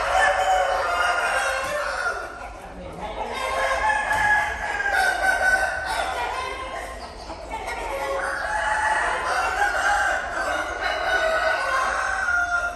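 Long, wavering animal calls, several overlapping at once, coming in three spells with brief dips between.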